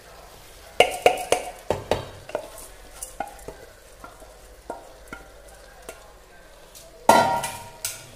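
Wooden spatula knocking and scraping soaked basmati rice out of a bowl into a metal cooker pot. A cluster of sharp knocks comes about a second in, then scattered light taps, and a louder scrape with a brief ring near the end.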